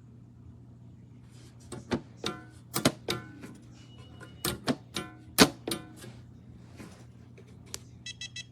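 Sharp clicks and knocks on a small metal biometric pistol safe, some with a short metallic ring, as its keypad and lid are worked. Near the end the safe's keypad gives three quick electronic beeps, with fresh batteries just fitted after it would not respond.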